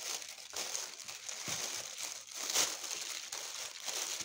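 Clear plastic roasting sleeve crinkling and rustling as hands squeeze and turn it, with raw chicken drumsticks inside. The crinkling comes irregularly, loudest a little past halfway through.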